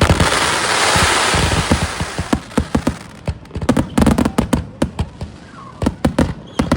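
Fireworks display: a rapid run of sharp bangs and booms throughout. In the first two seconds or so a loud, dense hiss rides over them and then fades away.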